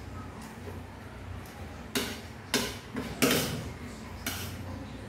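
Spoon and fork clinking and scraping against a plate while eating, with about four sharp clinks in the second half, the one a little past the middle the loudest.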